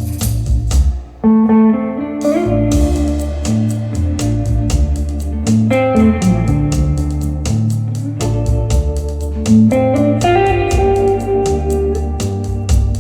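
Pop-rock music played back on KEF LSX active speakers: electric guitar over bass and a steady drum beat, with a brief break about a second in.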